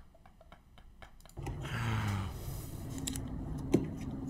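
Faint clicks, then about a second and a half in a steady low hum with hiss starts up. This is the soundtrack of a hair-transplant procedure clip beginning to play. A single sharp click comes near the end.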